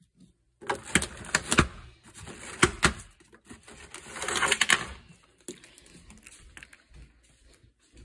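Plastic shrink-wrap crinkling and thin plastic water bottles clattering as one bottle is pulled out of a 40-bottle case. The crackling is dense and loud from about half a second in until about five seconds, then thins to lighter scattered crackles.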